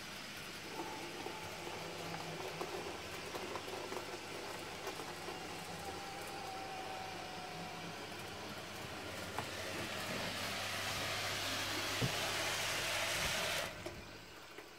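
N-scale model trains running on the layout: a steady small-motor whirr over a low hum, with a faint whine in the middle. It grows louder from about ten seconds in and drops away suddenly near the end.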